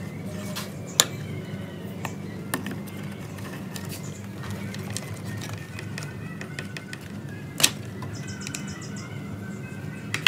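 Sharp clicks and taps of small metal and plastic parts being handled in a dirt-caked disc player chassis, a few strikes with the loudest about a second in and near eight seconds, over a steady low hum. Faint bird chirps come through, with a quick trill near eight seconds.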